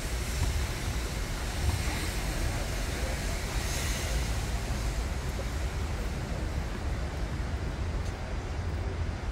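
Steady low rumble with a faint hiss: outdoor tennis-stadium ambience, with wind on the microphone.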